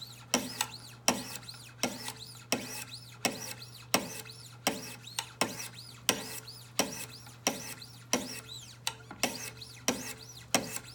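Fine diamond stone on a Wicked Edge Generation 3 Pro guided-rod sharpener stroking along the steel edge of a ZT folding knife: light, even scraping passes, about two a second. These are marker-test passes to find the blade's existing bevel angle, scrubbing the marker ink off the edge.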